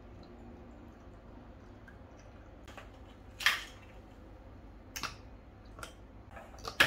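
A few short clicks and knocks of kitchen containers being handled while a smoothie is put together in a plastic blender bottle, the loudest about three and a half seconds in and again near the end, with smaller taps in between.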